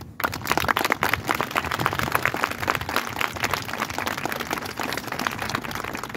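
A small crowd applauding: many hand claps starting together and thinning out near the end.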